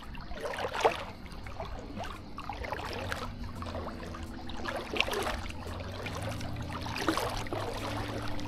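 Sea water splashing and lapping close to a microphone held at the water's surface, in irregular sloshes. A low steady hum comes in underneath about two and a half seconds in.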